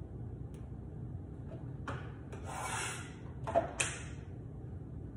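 Chef's knife cutting butternut squash on a cutting board: a knock of the blade on the board about two seconds in, a brief scrape, then two quick sharp knocks, the loudest, a little later.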